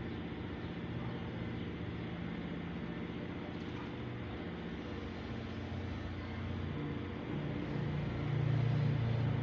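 A steady low motor hum with a few held tones, growing louder near the end.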